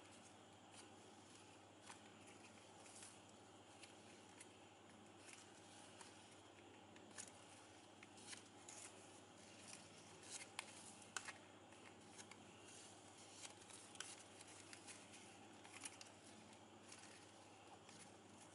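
Faint, scattered crinkles and soft clicks of shiny ribbon strands being handled and pulled tight on a woven ribbon rosette, with a few sharper ticks about ten to eleven seconds in.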